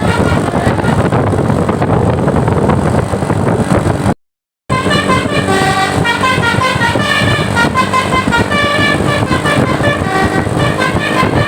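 Loud, steady noise of a bus, then a brief dropout about four seconds in. After it, telolet basuri bus horns play a melodic tune: several horn tones at once stepping between notes in a repeating pattern.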